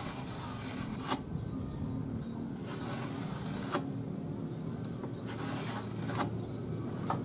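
Marking knife drawn along the steel blade of a combination square, scoring a line into a wooden board: three scratchy strokes of about a second each, each ending in a sharp click, with one more click near the end. A steady low hum runs underneath.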